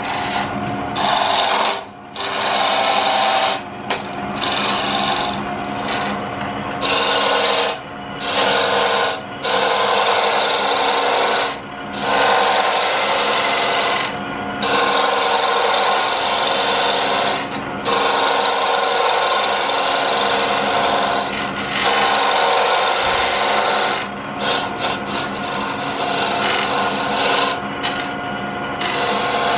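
Turning tool cutting into a spinning wooden blank on a Jet lathe: a scraping hiss in passes of a few seconds, broken by short pauses, over the steady hum of the lathe.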